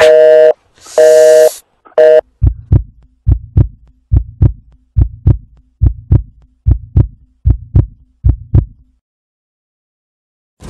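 Phone busy tone beeping three times, about half a second on and half off, as the call drops. Then a heartbeat, eight double thumps (lub-dub) a little under a second apart, stopping about nine seconds in.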